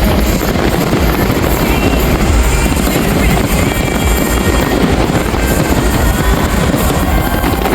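Dense fireworks barrage giving a loud, continuous rumble, mixed with the display's soundtrack music.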